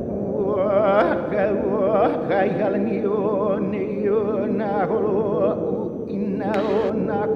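Music with an operatic singing voice holding long notes with a wide vibrato.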